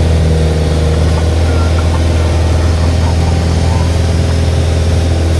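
Light single-engine aircraft's piston engine and propeller running steadily in flight, heard inside the cockpit as a loud, even, low drone.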